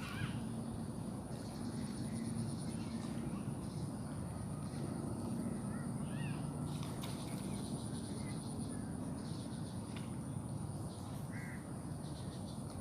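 Outdoor ambience: a steady low rumble under a constant high insect drone, with a few short bird calls scattered through.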